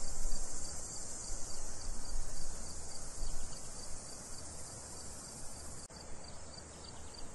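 Crickets chirping steadily in a dense high-pitched trill, over a low uneven rumble, with a brief break about six seconds in.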